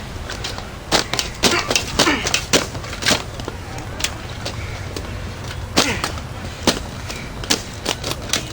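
Cheap Lasko box fan being smashed apart: a quick run of sharp cracks and whacks for the first few seconds, then single blows every second or so.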